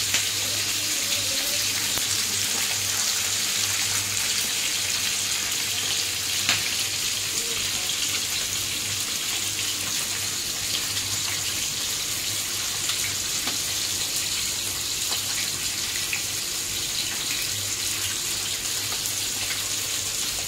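Tilapia frying in oil in a flat pan: a steady sizzle with scattered small pops.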